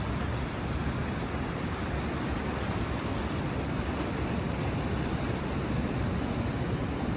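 Steady rushing of Pismo Creek's fast-flowing floodwater, the creek running high and full like a river.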